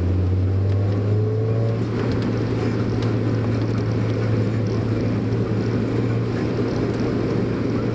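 Mazda Roadster's four-cylinder engine running steadily at cruise with tyre and road noise, heard from inside the car as a constant low drone.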